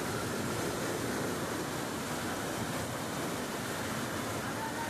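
Heavy rain pouring down in a downpour, a steady unbroken hiss.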